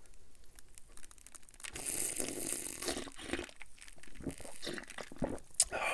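Close-miked sipping and gulping of fizzy Diet Dr Pepper from a cup: a slurp about two seconds in, then a run of short swallowing clicks.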